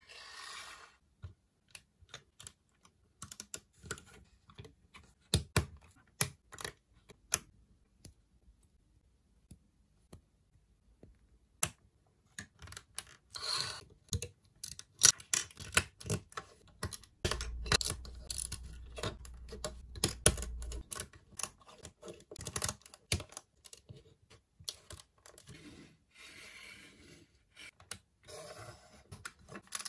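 Plastic Lego bricks and plates clicking and clattering as they are handled, pressed together and set down on a wooden tabletop: irregular sharp clicks with bits of rummaging, and a quiet pause about a third of the way in.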